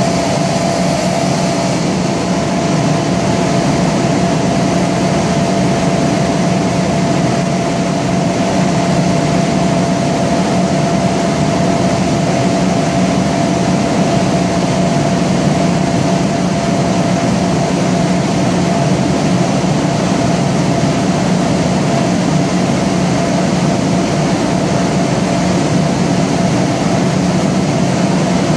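Kaeser CS 121 100 hp rotary screw air compressor with a rebuilt airend, running unloaded at idle after being switched off load: a steady whine over a low hum. A high hiss dies down about two seconds in.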